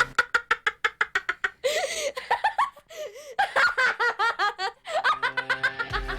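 High-pitched laughter: quick ha-ha pulses at first, then long rising and falling laughing cries in the middle, then quick pulses again near the end.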